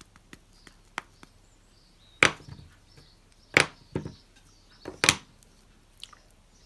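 Sharp plastic knocks as a small ink pad is tapped onto a clear photopolymer stamp on an acrylic block and the block is set down on card: three loud knocks about a second and a half apart, with lighter clicks between.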